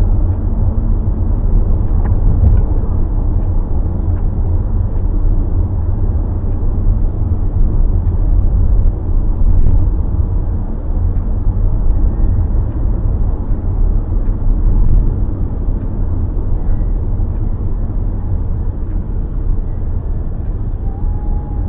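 Steady low rumble of a car driving, with road and engine noise, heard from inside the cabin.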